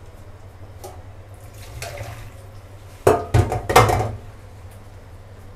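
Noodle strainer knocked and shaken against a stainless steel sink about three seconds in, a quick run of sharp clatters as water is shaken off blanched instant noodles, over a steady low hum.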